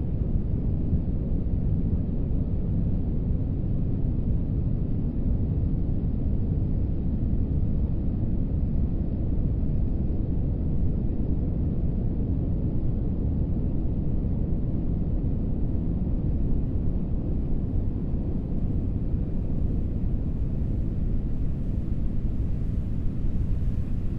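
Beach wind and surf, digitally processed and muffled into a steady, deep rumble with the high end cut away. A faint hiss creeps in near the end.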